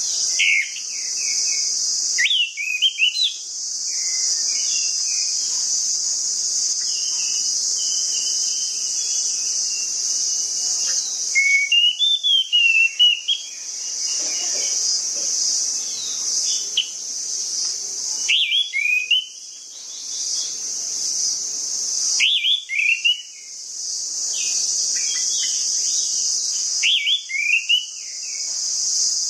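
Orange-headed thrush singing: clusters of quick, rising and falling whistled notes in bursts with pauses between, over a steady high-pitched insect-like hiss.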